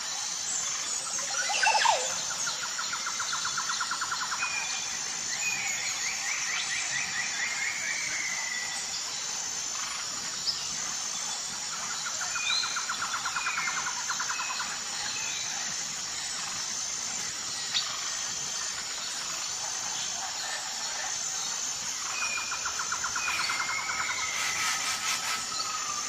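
Jungle birds calling: a fast trill repeats about every ten seconds among scattered short chirps, and a falling trill comes a few seconds in. A steady high pulsing buzz runs underneath, and a louder rising call sounds about two seconds in.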